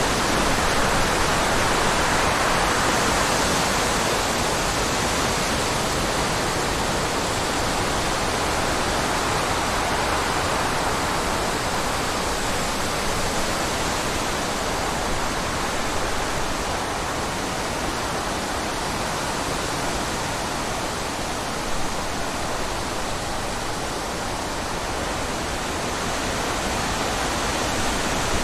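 Steady rushing water: an even, unbroken noise with no pauses or rhythm.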